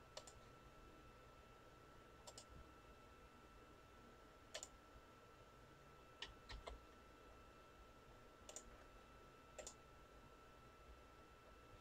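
Near silence: room tone with a faint steady high whine, broken by faint sharp clicks every second or two, some of them doubled.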